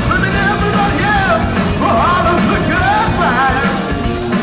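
A live rock band playing loud on electric guitars and drums, with a high, wavering melody line over them that stops just before the end.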